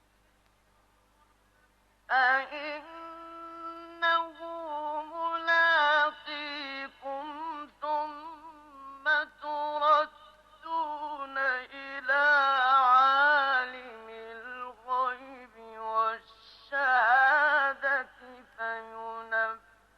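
Solo male voice chanting Quranic verses in melodic tajweed style, with long held and ornamented notes broken by brief pauses. It begins about two seconds in, after a silent breath pause.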